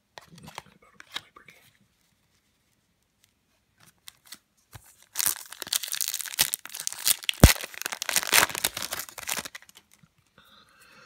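A trading-card pack wrapper being torn open and crinkled, loud for about four seconds in the middle with one sharp crack. It follows a few light rustles of cards being handled.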